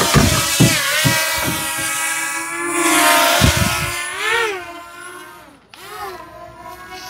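WeFone WF31 quadcopter's four brushless motors whining as the drone lifts off and climbs. The pitch rises and falls as it steadies, then the whine fades as it flies up and away. There are several low thumps in the first couple of seconds.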